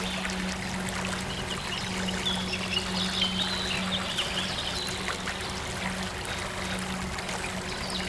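Running water from a stream, a steady rushing and trickling, with small birds chirping in short high calls about two to four seconds in. A steady low tone hums underneath.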